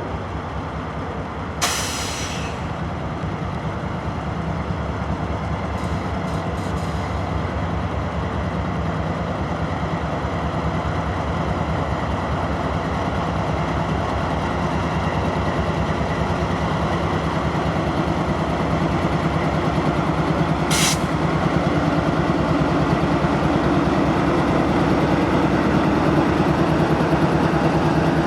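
Diesel freight locomotive running under power, slowly growing louder as it draws nearer. Two short, sharp air hisses sound about two seconds in and again about twenty seconds in.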